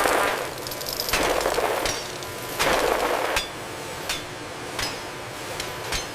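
Production-line factory machinery working: metallic clinks and taps with a hissing burst about every second and a half, the bursts giving way to single sharp clicks in the second half.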